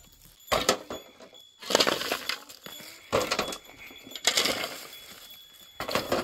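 Hard masonry clattering and crashing down, about five sharp crashes in six seconds, each dying away quickly.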